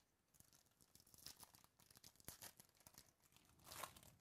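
Foil wrapper of a Topps Chrome baseball card pack crinkling and tearing as it is opened by hand, a run of quiet, irregular crackles with the loudest tear near the end.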